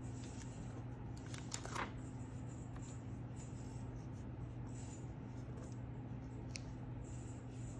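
Faint paper handling: a brief crackle of old sheet-music paper about two seconds in, then fingers rubbing and pressing a torn paper strip onto a card index card, over a steady low hum.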